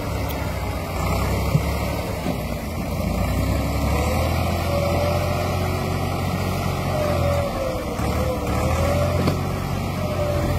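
Massey Ferguson 260 tractor's three-cylinder diesel engine running steadily under load as it pulls a heavily loaded soil trolley, with a short dip near the end.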